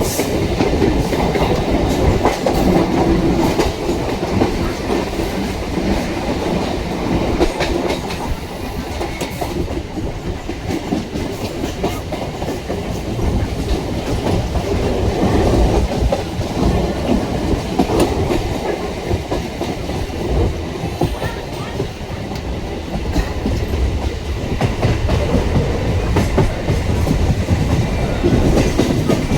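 Electric multiple unit (EMU) local train running over the track: a continuous rumble with wheels clattering over rail joints and points throughout.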